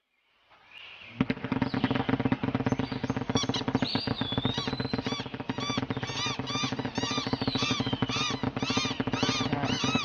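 A flock of small cartoon birds squawking and chattering all at once, a dense din of rapid rising-and-falling chirps that starts suddenly about a second in.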